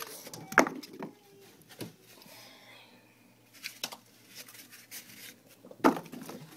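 Egg-carton cardboard being lifted out of a mealworm bin and handled: scattered knocks, taps and rustling, with two sharp knocks, one about half a second in and one near the end.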